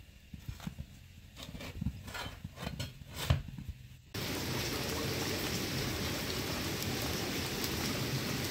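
Scattered light knocks and clicks. About four seconds in, they give way abruptly to a steady, even rush of water.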